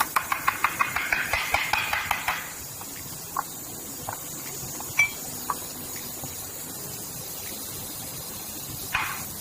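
Light metal-on-metal tapping from hand tools working the floor grinder's head, most likely prising out the broken oil seal: a quick run of about six taps a second for roughly two seconds, then a few single clinks.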